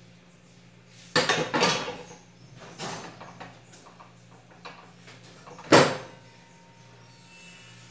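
Kitchen clatter as a glass baking dish is brought to a gas stove's oven and the oven door is worked. A clattering burst comes about a second in, then a few lighter knocks, and a single sharp bang, the loudest, comes a little before the end, over a low steady hum.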